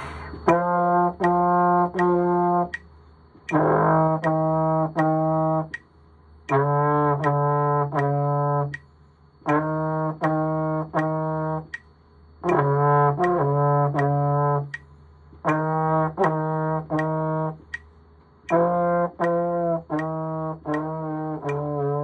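Trombone playing short practice phrases of a few connected notes, each about two seconds long with brief rests between, some notes sliding from one pitch to the next. A steady metronome click sounds about twice a second throughout.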